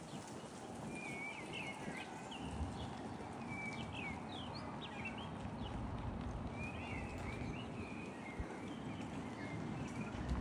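Small birds chirping: many quick, high chirps and short sweeps, in loose clusters, over a steady low background rumble.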